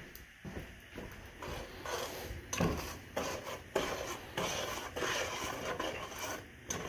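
A spoon stirring and scraping a grainy mixture of sugar, cocoa, butter and milk around a nonstick saucepan, in uneven strokes with a couple of sharper knocks against the pan about two and a half and four seconds in.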